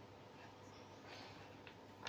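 Near silence: room tone with a faint soft rustle about a second in and a small light click near the end.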